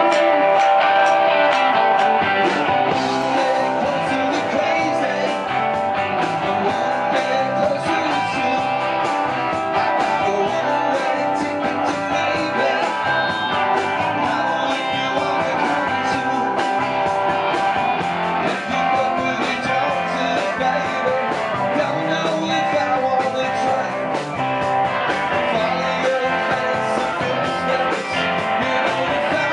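Live rock-and-roll band playing, with electric guitar and electric bass over a drum kit.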